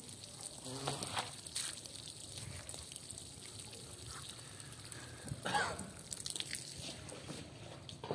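Water from a hose pipe splashing and trickling onto a soaked rug, a steady spatter, with one brief louder noise a little past the middle.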